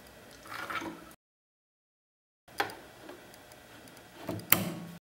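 Clicks and handling noise as the presser foot is changed on a Janome Green 19 sewing machine. The loudest, sharpest click comes about four and a half seconds in, as the snap-on buttonhole foot clicks into place.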